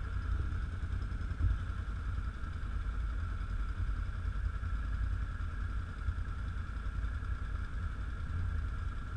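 Can-Am 1000 XT ATV engine idling steadily, a low even rumble with a constant high-pitched whine over it.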